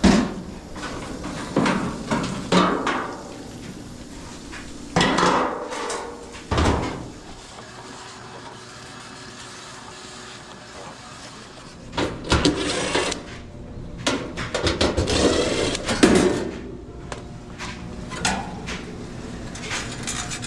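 Metal clanks, knocks and rattles as the sheet-metal parts of an Amana clothes dryer are handled and taken apart to reach the heating element. There are several separate knocks, then a longer run of quick rattling and scraping past the middle.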